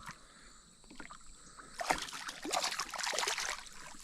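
Water splashing around a kayak: quiet at first, then a run of splashing with small knocks from about halfway through.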